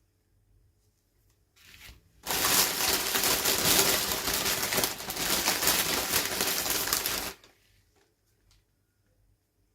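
Toy packaging wrapper being crinkled and torn open by hand: a dense crackling rustle lasting about five seconds that stops abruptly, after a brief softer rustle.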